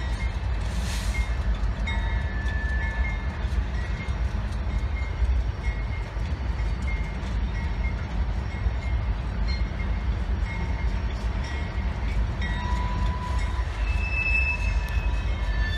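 GE diesel locomotives moving slowly through a rail yard: a steady low engine rumble, with short high wheel squeals now and then, clearest near the end.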